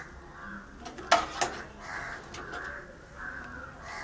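Crows cawing repeatedly in the background. Two sharp clicks about a second in come from the computer's cables and plastic connectors being handled.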